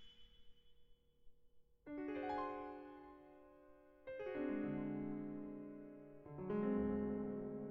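Solo piano playing slow accompaniment music: after a quiet first second or two, three chords are struck about two seconds apart, each left to ring and fade away.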